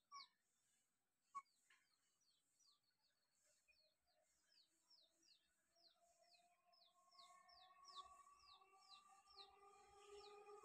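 Faint bird chirps, short and falling in pitch, repeating about twice a second. From about halfway, a distant approaching EMU electric local train adds a hum of several steady tones that slowly grows louder.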